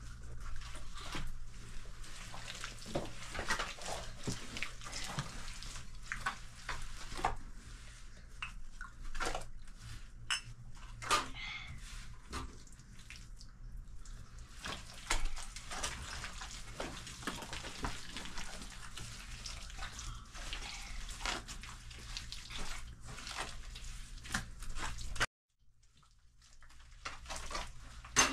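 Irregular small clinks and knocks of objects being handled, over a steady hiss, breaking off briefly near the end.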